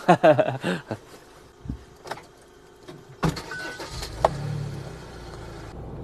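A campervan's engine started about three seconds in, with a short beep, then running steadily with a low rumble as the van pulls away.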